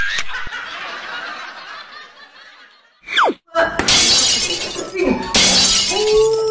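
Editing sound effects for a clip transition: a sharp shattering crash whose noisy tail fades over about two seconds, a quick falling whistle about three seconds in, then several loud bursts of harsh, glitchy static, with a man's voice faintly under the last of them.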